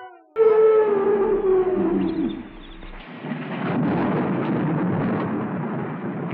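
Haunted-house sound effects: a loud howl-like cry that starts suddenly and slides downward in pitch over about two seconds, followed by a steady low rumble.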